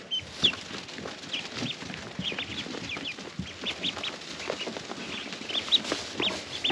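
A group of ducklings peeping: many short, high peeps, several a second and overlapping, some falling and some rising in pitch.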